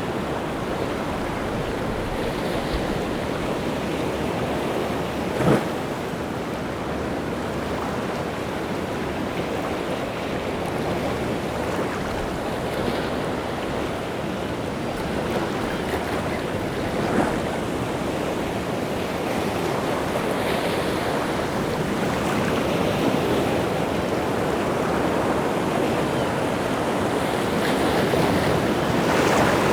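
Rough sea surf breaking and washing continuously on the shore, stirred up by wind. Two brief sharp louder hits stand out, about five and seventeen seconds in.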